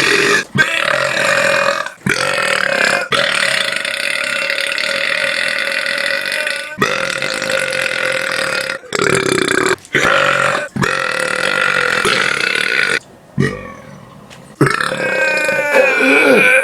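A person belching loudly again and again: about five long, drawn-out burps with a steady pitch, the first lasting about six seconds, each cut off sharply before the next.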